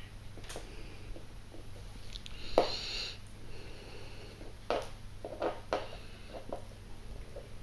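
Yorkshire terrier puppy gnawing a chew: soft, scattered clicks and knocks of teeth on the chew. About two and a half seconds in comes the loudest sound, a sharp knock followed by a brief high squeak.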